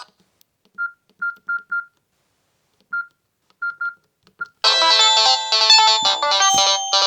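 Samsung C3520i phone speaker playing Siemens ringtones as MIDI. A handful of short single-pitch beeps come first, then about four and a half seconds in a full multi-voice ringtone melody starts.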